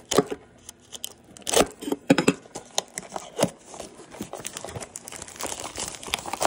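Shiny plastic wrapper on a small box being slit and torn open by hand: sharp irregular rips with crinkling, the crinkling growing denser near the end as the wrapper is pulled off.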